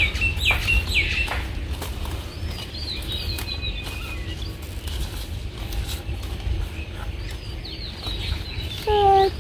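Songbirds chirping with short falling calls, over the rustle and occasional snap of large taro leaves and stalks being handled, and a low steady rumble. A hen clucks once near the end.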